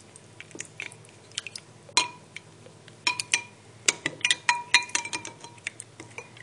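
Small plastic toy figurines being scrubbed in a bowl of water, clicking and knocking against the metal bowl over and over; the harder knocks make the bowl ring briefly. The knocks come thicker and louder in the second half.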